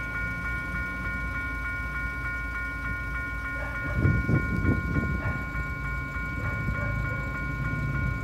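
Electronic level-crossing warning bell ringing a fast, steady, repeating electronic tone, the sign of an active crossing with its barriers down for an approaching train. A low rumble runs underneath, and a louder, rougher sound comes about four seconds in.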